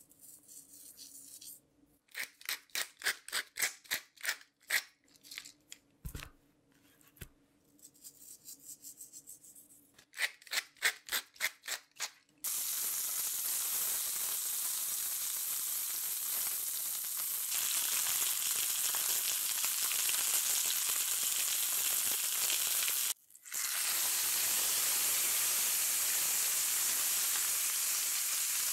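A run of short rasping strokes, then a thick bone-in beef rib steak starts sizzling loudly as it goes into a hot cast-iron skillet. The sizzle comes in suddenly, keeps a steady hiss, and breaks off for a split second once later on.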